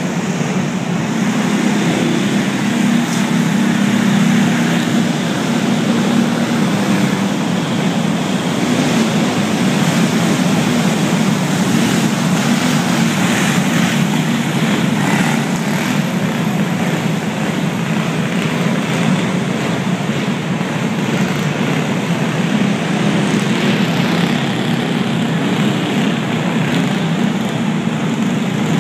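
Several go-kart engines running together as the karts race around the track, a steady, unbroken drone that swells and eases slightly as they pass.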